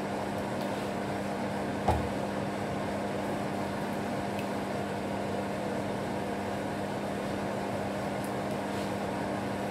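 Beaten egg sizzling in a nonstick pan of flat rice noodles as a wooden spatula stirs it, under a steady mechanical hum. One sharp knock of the spatula against the pan about two seconds in.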